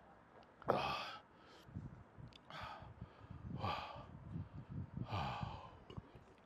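A man breathing out heavily in four loud sighs about a second or so apart, the first the loudest. He is worn out by the heat after pitching a tent.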